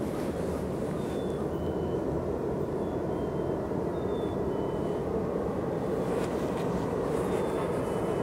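Steady low rumble of an approaching freight train's diesel locomotives, a GE C44-9W and an EMD SD60F, still far off and growing slightly louder. A few short high chirps sound over it.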